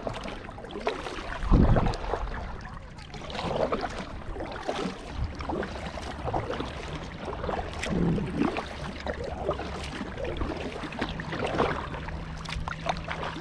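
Kayak paddling: a paddle splashing into the water every second or two, with water dripping off the blades. A low thump comes about a second and a half in.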